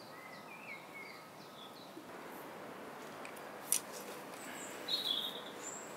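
Small birds chirping now and then over a faint outdoor background. A single sharp metallic click about three and a half seconds in, from the steel shackle being fitted to the ratchet strap.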